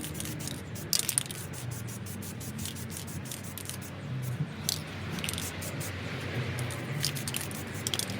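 Background lo-fi hip-hop music with a steady beat, and a few short hisses of clear coat being sprayed onto a brake caliper.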